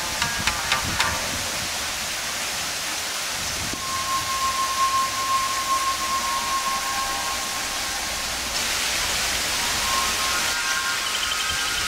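Steady rushing hiss of falling water from a rocky garden waterfall, growing louder about two-thirds of the way through. A long high held tone runs above it for a few seconds.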